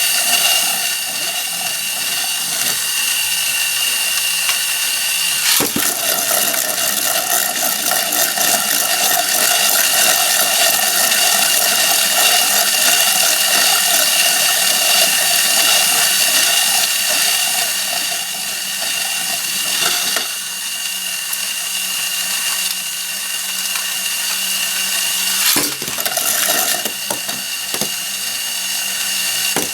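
Tornado Beystadium's motorized turntable whirring steadily while a Beyblade spinning top (Tornado Herculeo 105F) spins and grinds on the plastic stadium, with a constant high whine. Three sharp knocks come about 6, 20 and 26 seconds in.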